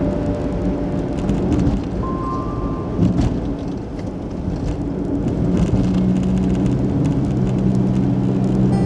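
A car driving along a road, with steady road and engine noise and music faintly underneath; sustained low notes come in more strongly about six seconds in.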